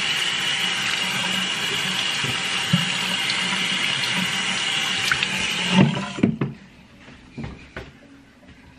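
Bathroom sink faucet running with a steady hiss as a small child's hands are rinsed under the stream. The water shuts off about six seconds in, followed by a few soft knocks.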